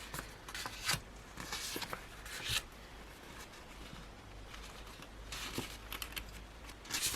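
Sticker sheets being handled and shuffled: soft, intermittent paper rustles and light slides, a few seconds apart.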